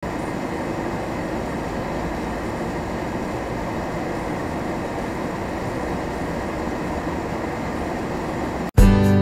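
Steady road noise heard from inside a vehicle's cabin: engine and tyres running at low speed on a snow-covered road. It cuts off abruptly near the end and guitar music takes over.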